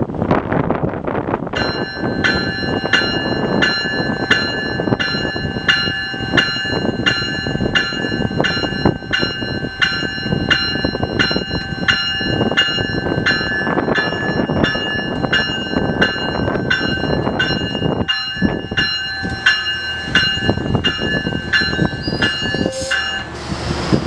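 Railroad bell ringing steadily at about two strikes a second, starting a couple of seconds in and stopping just before the end. Under it is the steady rumble of an approaching passenger train, which draws up near the end.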